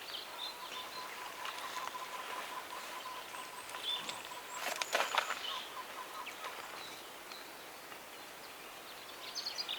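Outdoor field ambience with faint bird chirps and a thin steady tone through the first six seconds or so. A few brief clicks or rustles come about five seconds in.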